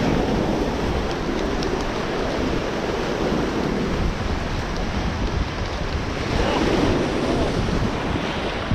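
Ocean surf breaking and washing over basalt boulders, a steady rushing wash, with wind buffeting the microphone.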